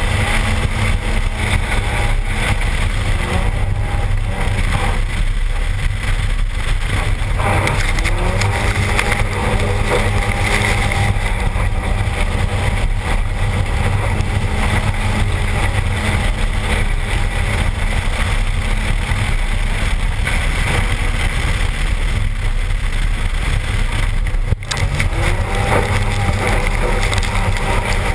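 Wind buffeting a car-mounted camera and slush and water spraying off the tyres as a turbocharged Toyota RAV4 with a 3S-GTE four-cylinder runs fast through standing water on ice, the engine note rising and falling faintly underneath.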